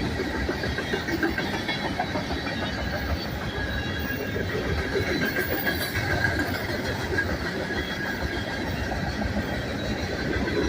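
Freight cars of a manifest train rolling past: a steady rumble and clatter of steel wheels on the rails, with a faint high wheel squeal held throughout.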